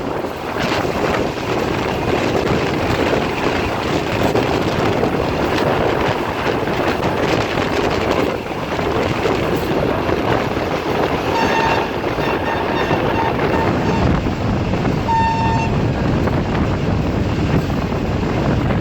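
Sir Syed Express train running at speed, a steady rushing rumble of wheels and wind. Its horn sounds in a few short broken toots about two-thirds of the way in, then once more, a brief stronger blast, shortly after.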